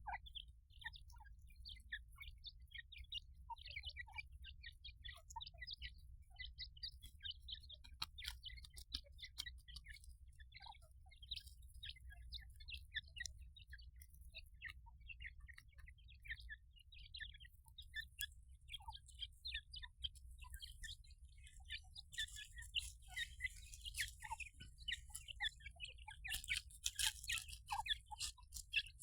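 Teetar (partridge) chicks cheeping: many short, high chirps, quick and overlapping, growing busier near the end, over a faint low hum.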